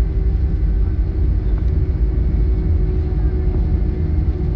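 Cabin noise inside an Airbus A320 moving along the ground after landing: a loud, steady low rumble from the wheels and engines, with a steady hum over it.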